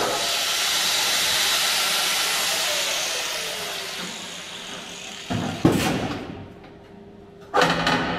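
Power cutting tool cutting through steel bracing section with a steady hiss, which fades out over the first three seconds as the disc spins down with a falling whine. Then the cut steel section clanks against metal twice, about five and seven and a half seconds in, the second clank ringing on briefly.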